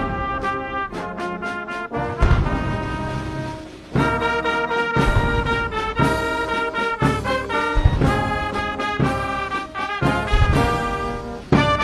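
Military brass band playing long, held chords, with deep booms every two to three seconds.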